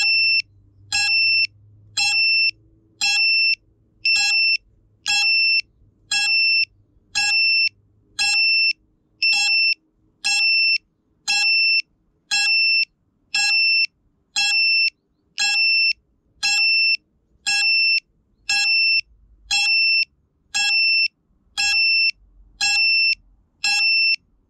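FPV quadcopter's electronic buzzer beeping steadily, one high beep about once a second, each about half a second long, the way a downed FPV drone sounds its beeper so it can be found.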